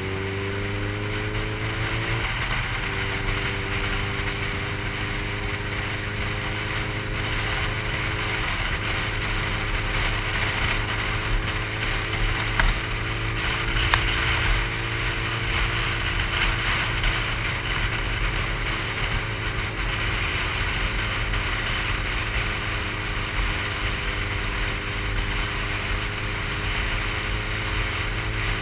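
Sport motorcycle engine pulling through the gears: its pitch rises, drops at an upshift about two seconds in and again at another near nine seconds, then holds a steady cruise. Constant wind rush on the microphone.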